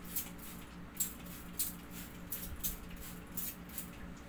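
A plastic trigger spray bottle spritzing water onto window glass, about eight short hissing squirts at uneven intervals, wetting the glass before frosted privacy film is laid on.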